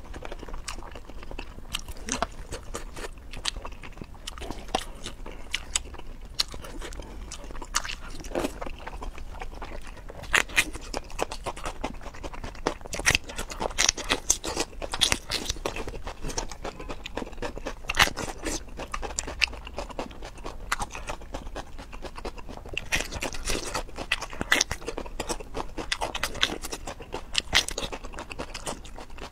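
A person eating with crisp, wet crunching and chewing, biting into and chewing a raw red bell pepper. Many short sharp crunches come in quick runs, louder and thicker after about ten seconds.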